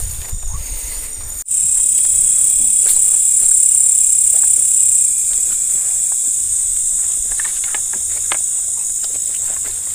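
Steady high-pitched chorus of night insects, which jumps louder after an abrupt break about a second and a half in. Scattered footsteps and rustling of grass and brush sound through it.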